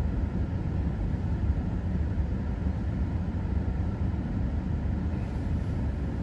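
Car idling, heard from inside the cabin as a steady low rumble.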